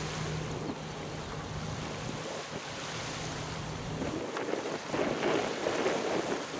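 Small waves lapping on a sandy beach, with wind on the microphone. A low steady hum runs under it and stops about two thirds of the way through, after which the lapping swells up louder.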